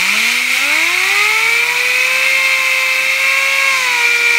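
Compressed air hissing from an air-hose blow gun, driving a fidget spinner to high speed. A loud, steady hiss with the spinner's whine rising in pitch over the first two seconds, then holding steady and dipping slightly near the end.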